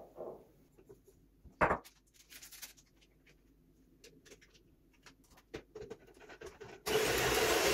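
Light clicks and knocks of a spoon against a plastic mixing bowl, with one sharper knock about two seconds in. Near the end an electric hand mixer switches on at its highest speed and runs steadily, whipping cream.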